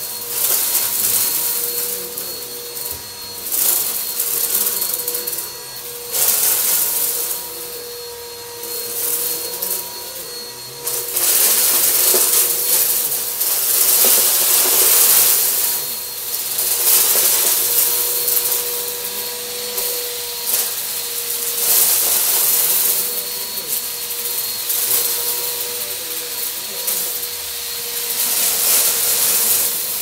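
Bissell Helix Turbo upright vacuum running with a steady motor whine while sucking up confetti from carpet. A crunchy, crackling hiss of debris rattling up into the machine swells and fades as the vacuum is pushed into the pile and pulled back.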